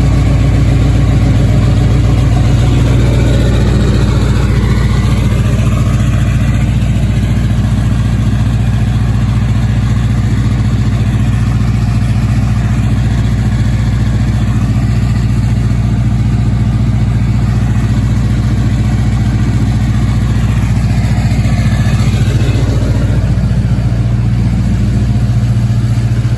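Ford 6.0 Power Stroke turbo-diesel V8 idling, a steady, even low rumble.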